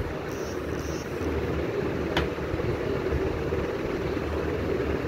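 Steady low rumbling background noise, with one short sharp click about two seconds in.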